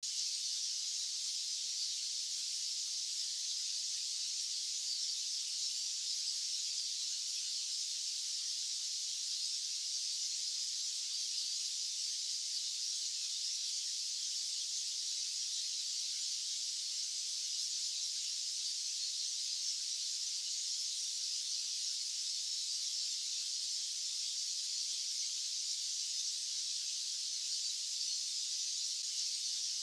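White-noise track: a steady, high-pitched hiss with no low end, unchanging throughout.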